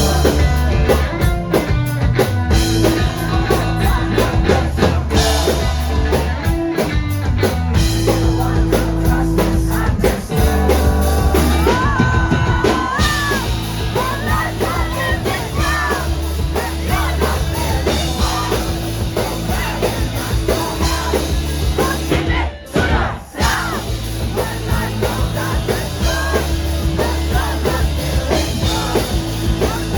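Live rock band playing loudly: drums, bass and guitars with a lead vocal over them. The band cuts out for a moment a little over twenty seconds in, then comes straight back in.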